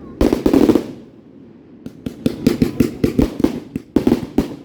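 Fireworks going off: a loud explosive crackle just after the start, then from about two seconds in a rapid string of sharp pops, several a second.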